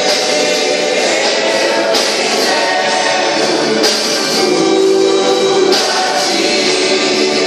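Christian gospel worship song playing, with full band accompaniment and singing.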